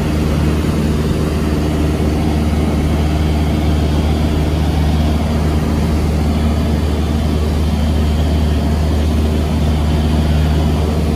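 Piston engine and propeller of a high-wing light airplane running with a steady low drone, heard from inside the cabin.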